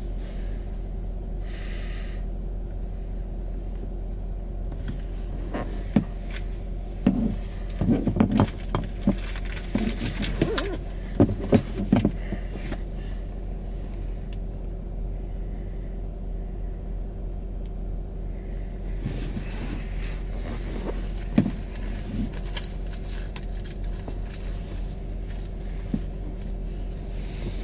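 Steady low hum of an idling vehicle heard from inside the cabin, with scattered knocks, rattles and rustling of someone rummaging around the seats, bunched between about six and twelve seconds in and a few more around twenty seconds in.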